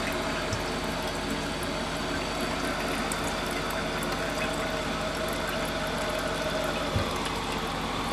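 Korky universal toilet fill valve running as water refills the tank: a steady hiss of water through the valve.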